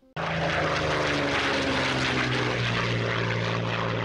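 Propeller aircraft engine running steadily, cutting in abruptly.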